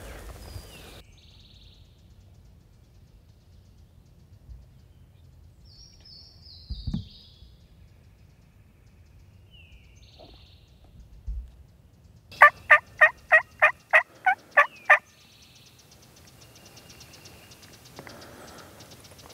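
A wild turkey gobbler gobbling once, loud: a fast rattling run of about ten notes lasting some two and a half seconds, past the middle of the stretch. A few faint, short, high bird chirps come before it.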